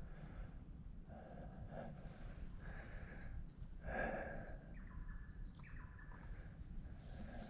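Mountain-bike rider breathing hard in short, repeated exhalations about once a second, the loudest about four seconds in, over a steady low rumble.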